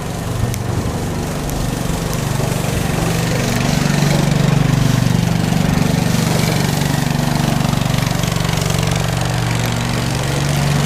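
An engine running steadily with a low hum, growing louder over the first few seconds and then holding steady.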